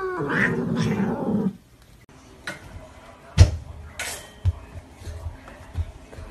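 A cat meowing for about the first second and a half. Then faint scattered taps and rustles from a hamster rolling in a box of litter pellets, with one sharper tap about three and a half seconds in.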